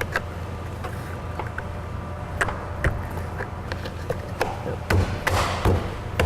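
Scattered sharp clicks and knocks of plastic trim pieces being handled and snapped back into place, with a brief rustle about five seconds in.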